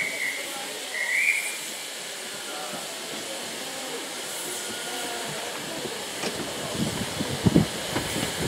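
LNER A3 steam locomotive Flying Scotsman standing with steam hissing steadily. A short high whistle note sounds about a second in, and a few heavy low thumps come near the end.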